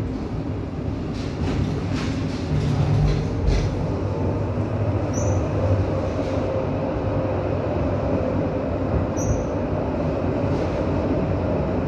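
Tram running along its track, heard from inside the passenger car: a steady low rumble of wheels on rails, with a few clicks and knocks in the first seconds. A faint steady whine sets in partway through, and two brief high squeaks come about 5 and 9 seconds in.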